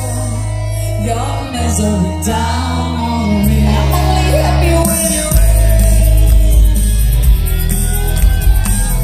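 Live rock band playing, with a woman singing lead over heavy bass and drums. The band gets louder about five seconds in.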